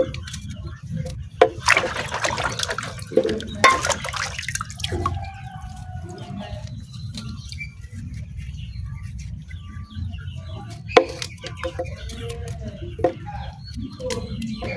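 Water splashing in two short bursts, with scattered drips and clicks and chickens clucking faintly now and then over a steady low rumble.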